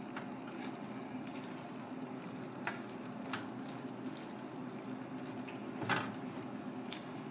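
Wooden spatula stirring and scraping leafy greens in a thick cream sauce in a small pan, the sauce bubbling, over a steady background hum. A few louder scrapes stand out, the loudest about six seconds in.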